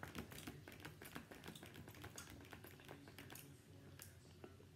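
Faint, irregular soft clicks, several a second, of a child chewing jelly beans.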